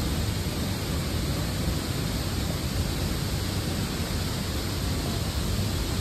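Waterfall and the river below it rushing, a steady noise of falling and running water with no breaks.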